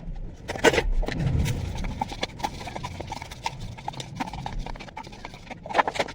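Irregular clatter and knocks of kitchen items being handled and set down, with sharper knocks about two-thirds of a second in and again near the end.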